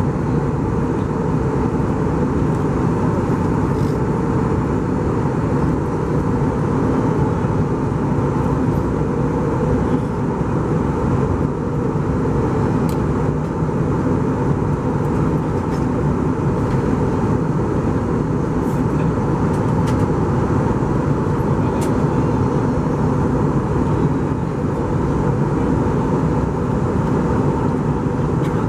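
Steady cabin noise of an Airbus A320 in flight, heard from a passenger seat: a constant rumble of engines and airflow with a faint steady hum, and a few faint ticks.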